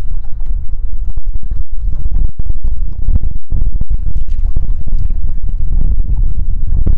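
Heavy wind buffeting on the microphone: a loud, gusty low rumble that cuts out for an instant many times.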